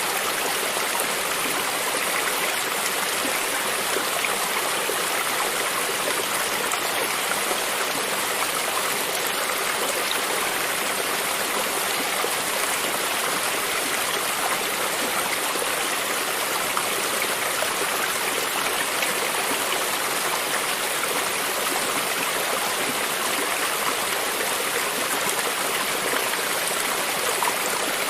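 A stream of running water flowing steadily, an even rushing and trickling with no change.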